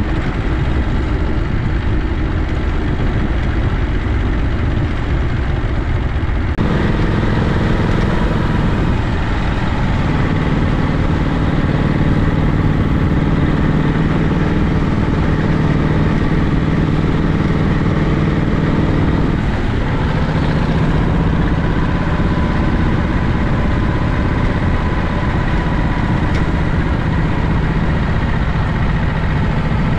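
Matchless Model X's big side-valve V-twin engine running steadily. The sound changes abruptly about six seconds in, and the pitch dips briefly about two-thirds of the way through.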